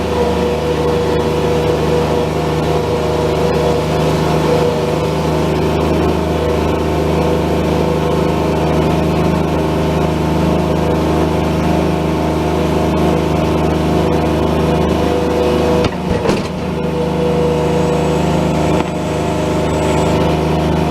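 Bobcat S70 skid steer loader's small diesel engine running at a steady speed, heard from the operator's seat, with a brief knock about 16 seconds in.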